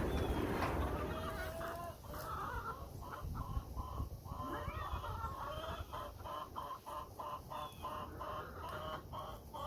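Backyard hens clucking, a quick run of short clucks, several a second, that builds up after the first couple of seconds.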